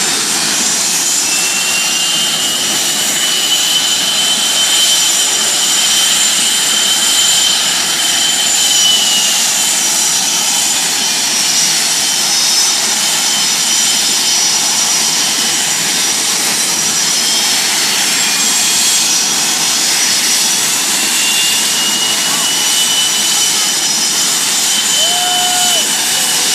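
Blue Angels F/A-18 Hornet jet engines running on the ramp after start-up: a steady loud rush of jet noise with high turbine whines that drift slowly in pitch.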